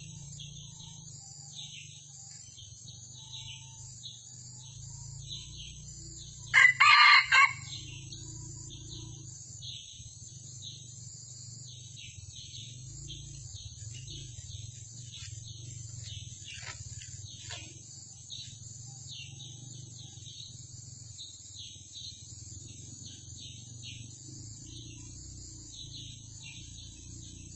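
A red junglefowl cock crows once, about six seconds in: a short, clipped crow of about a second in three parts, loud over a steady chirring of forest insects.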